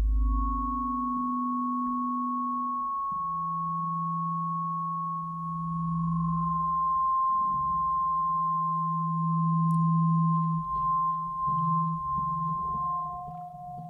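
Acoustic feedback from microphones inside a bass clarinet, played back through loudspeakers and shaped by the instrument's keys. A steady high whistling tone is held over lower humming tones, which step down in pitch about three seconds in. A second, slightly lower whistle joins near the end, with faint clicks.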